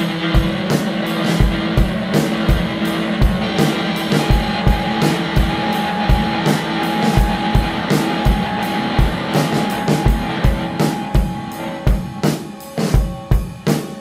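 Rock music with guitar and a steady drum beat. Near the end the guitar thins out and the drums stand out.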